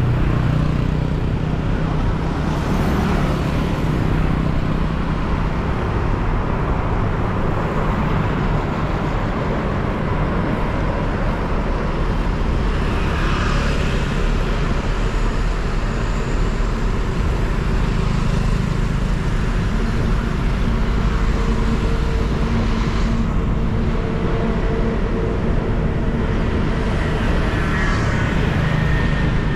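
Steady city traffic and road noise heard from a moving motorcycle: engine and road hum with a heavy low rumble, and other vehicles passing, at an even loudness.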